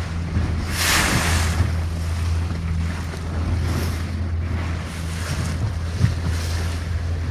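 A houseboat's motor running with a steady low drone, under water rushing and splashing along the hull and wind buffeting the microphone. A louder rush of water and wind comes about a second in.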